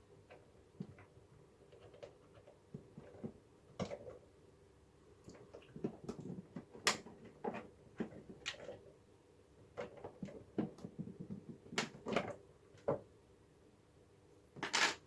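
Irregular light clicks and knocks of a plastic-bodied RC car being handled as its body clips and body shell come off, with a louder knock near the end.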